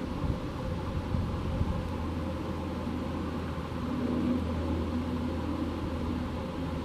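Steady low rumble with faint, even hums: a Condor Boeing 767-300ER's jet engines at taxi idle as it rolls slowly across the apron.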